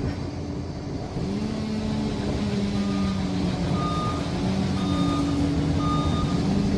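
Liebherr PR 746 crawler dozer's diesel engine running under load, its pitch rising about a second in, while its reversing alarm beeps about once a second, four times, as the dozer backs up.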